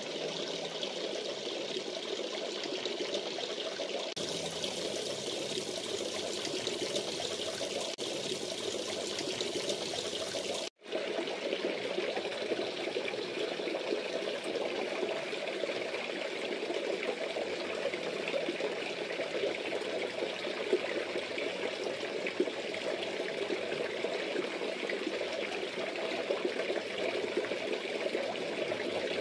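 Water steadily splashing and trickling into a fish pond, stirring the surface into bubbles. The sound cuts out for an instant about eleven seconds in, then carries on.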